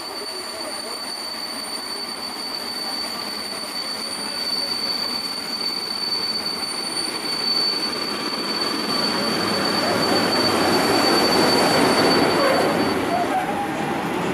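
PKP EP07 electric locomotive hauling a passenger train along the platform. Its rumble grows louder as it passes close and slows almost to a stop. A steady high-pitched squeal runs under it and cuts off near the end.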